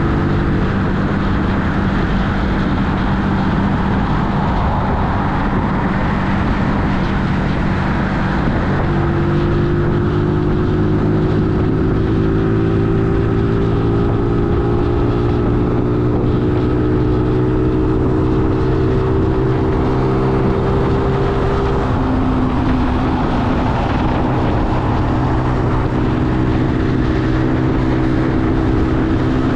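Keeway Superlight 125's V-twin engine running under way at road speed, over a steady rush of wind and road noise. About a third of the way in the engine note changes and climbs slowly as the bike pulls, then steps down about three-quarters of the way through, as at a gear change.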